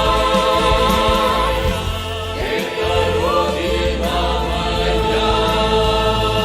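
Music: a song with choir-like voices holding long, steady notes.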